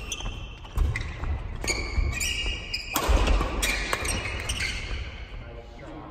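Badminton doubles rally on a wooden gym floor: sharp racket strikes on the shuttlecock, with thudding footfalls and brief shoe squeaks, echoing in a large hall. It dies down near the end as the rally finishes.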